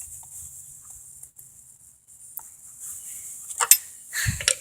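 Scattered light clicks and knocks of parts being handled, with a sharp click near the end followed closely by a dull thump.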